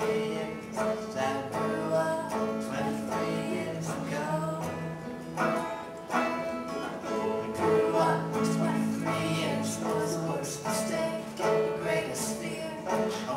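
Acoustic guitar and banjo played together in a live folk-style song, with a woman singing over the strummed and picked strings.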